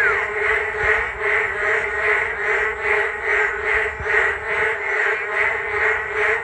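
A loud chorus of many frogs calling together, a dense continuous din that swells and fades about twice a second.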